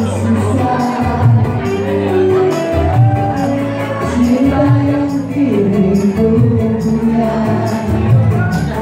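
Live dance music from an electronic arranger keyboard: a steady drum-machine beat with bright high percussion, bass and a melody, with a voice singing along.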